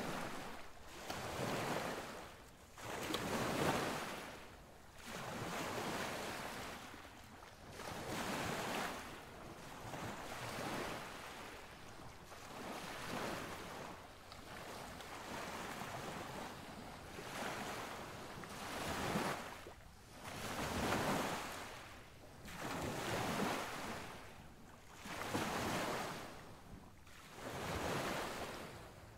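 Surf washing on a beach, a rush of noise that swells and fades about every two to three seconds.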